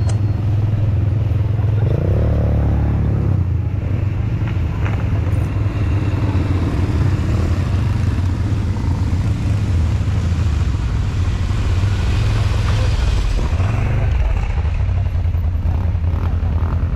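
Quad bike (ATV) engines running, a steady low rumble.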